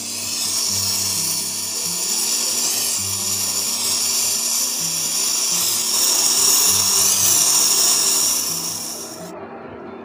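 Gas brazing torch flame hissing steadily while copper refrigerator tubing is brazed, until it cuts off near the end. Background music plays underneath.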